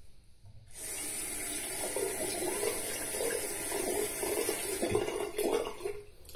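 Bathroom sink tap running while a Feather Popular safety razor is rinsed in the stream, the water splashing unevenly through the head; the lather rinses out easily. The water comes on about a second in and stops just before the end.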